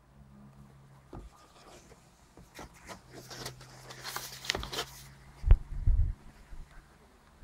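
Phone box and packaging being handled and opened: light clicks, then rustling and scraping for about two seconds, followed by a few heavy thuds from the handling.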